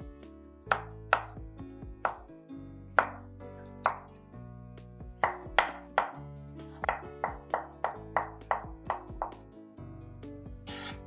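Knife cutting a block of firm tofu, the blade tapping on a cutting board in a run of quick, uneven strokes, over background music.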